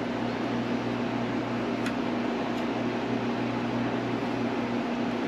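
Steady electric motor hum with a low, unchanging tone, and two faint light clicks a couple of seconds in.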